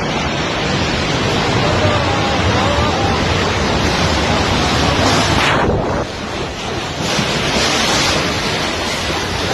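Strong whirlwind winds blowing hard and buffeting the microphone in a dense, steady rush of noise that briefly drops off about six seconds in.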